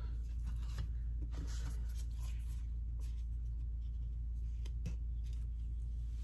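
Steady low hum with a few faint, light clicks and scrapes scattered through it, like small objects being handled.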